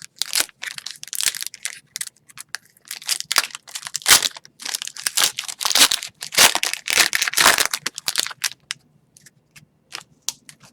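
Plastic wrapper of an Upper Deck Series 1 hockey card pack being torn open and crinkled by hand: a run of irregular crackling rustles for about eight seconds, thinning out to a few light clicks near the end.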